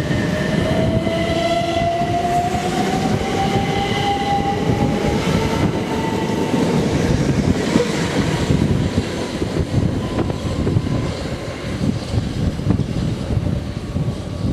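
Train running through the station, with a whine that rises steadily in pitch over the first six seconds. Heavy wind buffets the microphone throughout.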